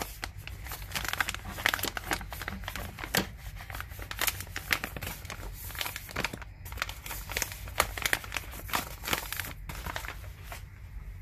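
Resealable plastic bag crinkling as it is handled, a dense run of irregular crackles that dies down near the end.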